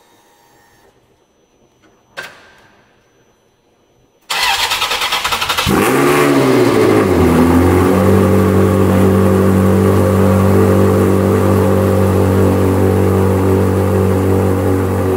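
A single sharp click about two seconds in. Then the Ferrari 360 Modena's V8, fitted with a decat and Tubi exhaust, cranks on the starter for just over a second, catches with a rev flare that rises and falls, and settles into a steady cold idle.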